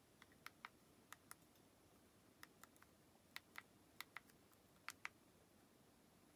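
Faint, irregular small clicks, a dozen or so, from the buttons and plastic case of a Sony NW-1000 Walkman digital music player being handled and operated.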